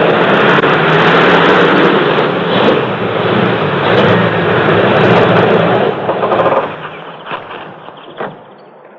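Car engine running steadily, then cutting off about six and a half seconds in, followed by a couple of short knocks.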